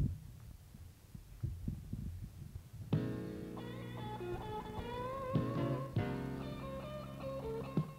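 Low rumble and scattered thumps, then music starts suddenly about three seconds in: a musical number begins, with sustained chords under a wavering melody line.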